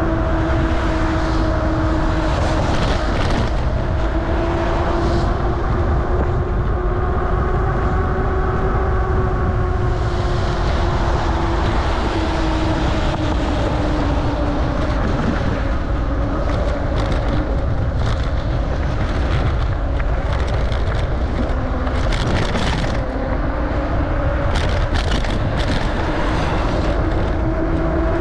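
Riding a bicycle in the rain: wind rushes over the microphone and the tyres hiss on the wet road. A steady hum slowly rises and falls in pitch.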